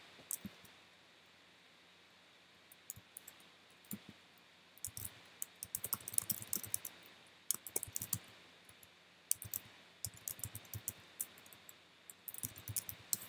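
Typing on a computer keyboard: irregular runs of quick key clicks, starting a few seconds in, with a pause between bursts.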